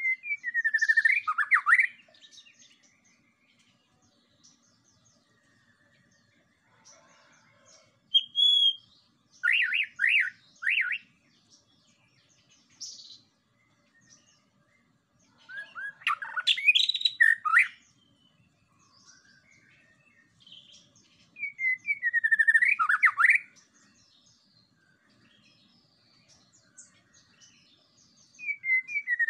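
White-rumped shama (murai batu) singing: loud whistled phrases, several of their notes sweeping down in pitch, separated by pauses of a few seconds.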